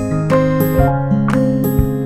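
Instrumental background music: plucked, sustained melody notes over held bass tones, a new note struck about every half second.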